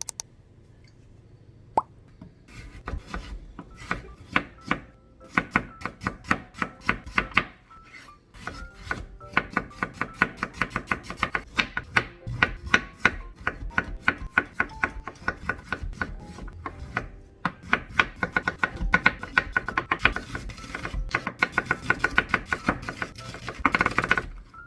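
Kitchen knife chopping vegetables on a cutting board in quick, even runs of sharp knocks, about five strokes a second, broken by short pauses. The chopping begins a couple of seconds in.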